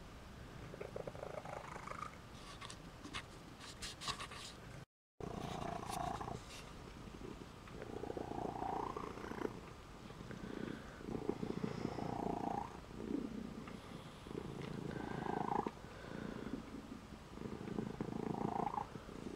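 Domestic cat purring steadily while kneading another cat. The purr swells and fades with each breath, about every two seconds, and breaks off for a moment about five seconds in.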